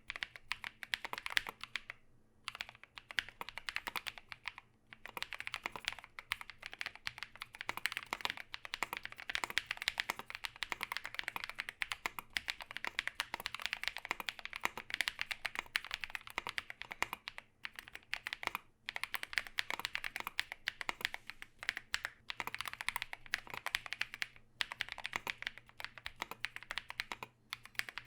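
Continuous typing on a custom 60% mechanical keyboard with Holy Panda tactile switches, SA-profile PBT keycaps and an aluminium plate: a dense run of keystrokes broken by a few brief pauses.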